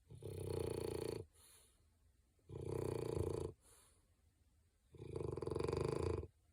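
French bulldog snoring: three loud snores of just over a second each, about two and a half seconds apart, the first two each followed by a softer breath.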